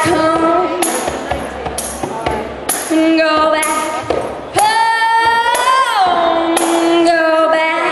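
A woman singing long held notes into a microphone, one climbing higher about halfway through and sliding back down, with a tambourine struck now and then in time.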